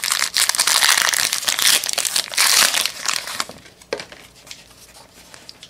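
Score football card pack wrapper crinkling as it is torn open and handled, loud for about three and a half seconds, then dying down to a few faint rustles and clicks.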